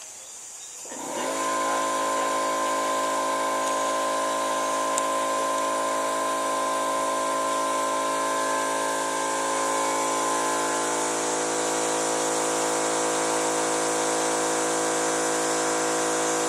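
Air compressor starting about a second in and then running steadily, a motor with an even pitched whine, pumping air through a coiled hose to pressurise a homemade PVC air cannon's chamber.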